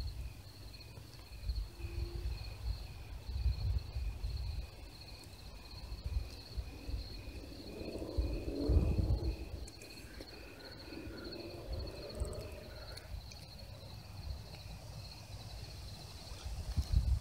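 Night insects, crickets or katydids, chirping in a steady, regular rhythm at two pitches. Under them runs an uneven low rumble of wind or handling noise on the phone's microphone, loudest about nine seconds in.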